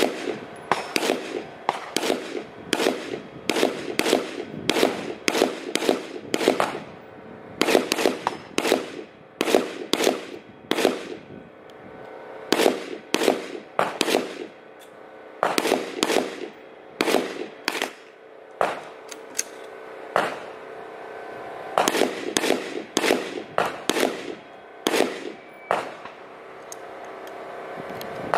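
Semi-automatic AR-style rifle firing a long series of single shots at a steady pace of about two a second, in strings broken by short pauses of one to three seconds.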